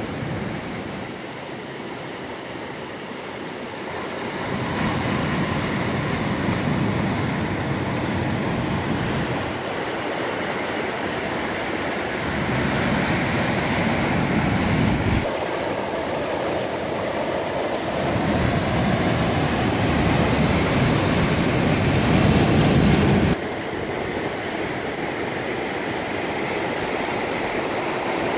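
Ocean surf breaking and washing over a rocky shore, a steady rush that swells and ebbs with each incoming wave. The sound changes abruptly twice, with a quieter stretch near the end.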